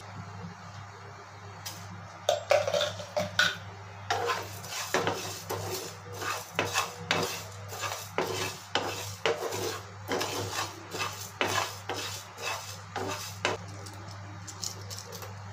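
A spatula scraping and stirring whole coriander and cumin seeds around a dry non-stick pan while they roast, in a quick, irregular run of rattling strokes that stops shortly before the end. A steady low hum runs underneath.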